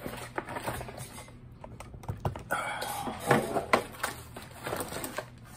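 Cardboard box being pulled and torn open by hand, with irregular scraping, tearing and clicking of the cardboard and packaging. The handling is busiest about halfway through.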